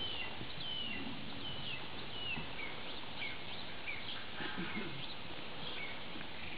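A songbird singing a steady series of short, downslurred whistled notes, one every half second or so, over steady outdoor background noise. A few soft low thuds come from the ridden horse's hooves on sandy ground.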